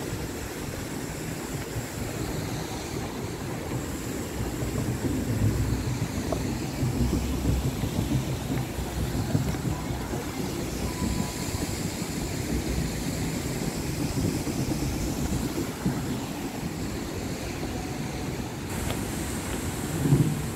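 Wind buffeting an outdoor handheld camera's microphone as a steady, uneven low rumble, with a brief louder thump near the end.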